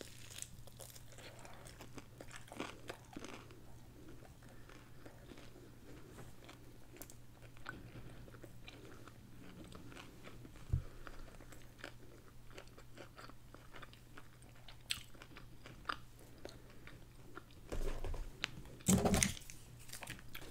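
Close-miked biting and chewing of a crispy fried chicken drumstick, with faint crunches and mouth clicks throughout. Louder crinkling near the end as a small condiment packet is handled.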